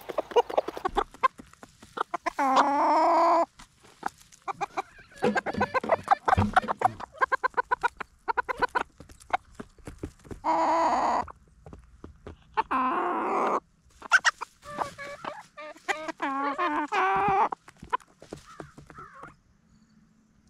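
Chickens clucking, with several longer drawn-out calls, while pecking at grain in a rubber feed pan, which makes a quick run of small taps.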